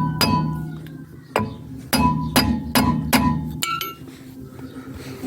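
About six hammer blows on a seized steel part of a Lada Granta's rear hub, each strike ringing metallically. The blows stop near the end: the part has not come free.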